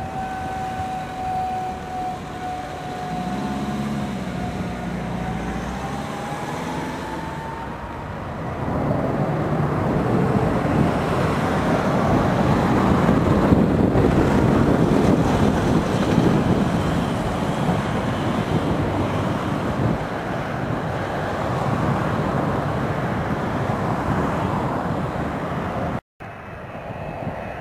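Jet aircraft engines whining, the whine rising in pitch a few seconds in as they spool up. Then a loud rush of jet noise swells from about eight seconds in, peaks near the middle and slowly eases as the aircraft takes off. The sound cuts off briefly near the end.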